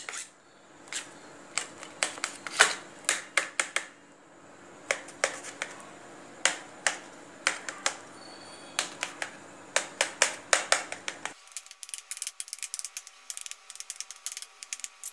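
A knife tapping on a metal steamer plate while cutting soft steamed brinjal into pieces: irregular sharp clicks that come faster near the end.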